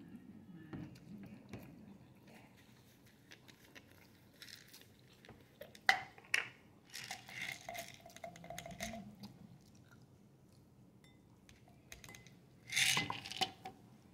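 Noodles being slurped and chewed close to the microphone, with chopsticks clicking against a ceramic bowl. A sharp click comes about six seconds in, and the slurps come as two hissing bursts with a thin whistle in them, the louder one near the end.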